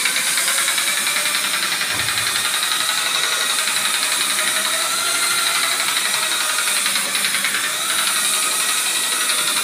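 Handheld drywall sander running steadily, its abrasive disc scrubbing a plastered wall: a constant motor whine over a high sanding hiss.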